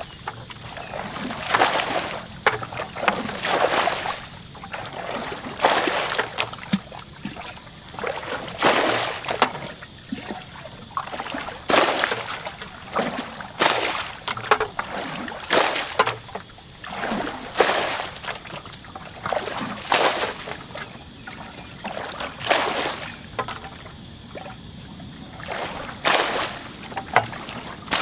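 A plastic bucket bailing muddy water out of a shallow rice-field pool. It scoops and throws again and again, a splash about every two seconds, with a steady high-pitched hiss underneath.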